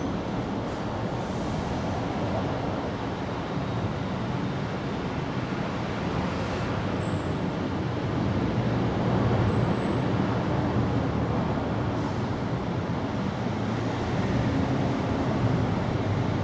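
Steady low rumbling background noise, with a few faint high chirps about seven and nine to ten seconds in.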